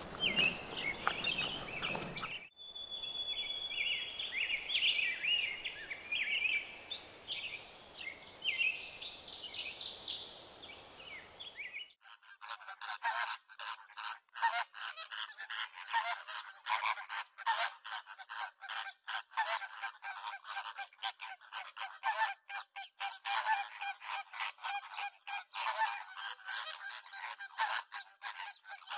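Small birds chirping and trilling. About twelve seconds in, this gives way abruptly to a large flamingo flock honking and cackling in a dense, continuous chatter.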